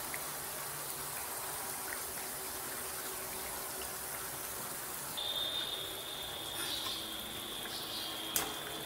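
Mathri deep-frying in oil on a low flame: a steady sizzling hiss. A thin high whine joins about five seconds in, and a wire-mesh skimmer clicks once against the pan near the end.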